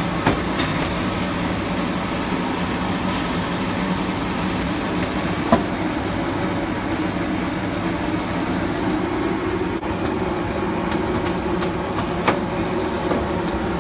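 Automatic carbon block filter packing machine running: a steady mechanical whir with a few sharp clicks, the loudest about five and a half seconds in.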